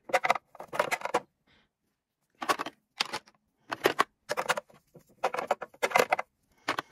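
Makeup items and a clear acrylic organiser drawer being handled: quick hard plastic taps and rattles in short clusters, with brief pauses between them.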